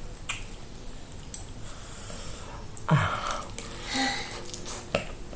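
A person eating quietly, with a few faint clicks and a short breathy sound, sniff-like, about three seconds in.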